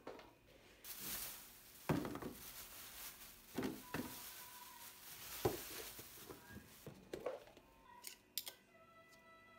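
Kitchen handling sounds: dishes and utensils knocked and set down a few times, with a hiss for a few seconds. Soft music comes in near the end.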